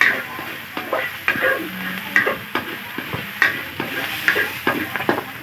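Spatula scraping and stirring chopped garlic, ginger, onions and green chilies as they sauté in a metal wok, in uneven strokes about two or three a second over a steady sizzle.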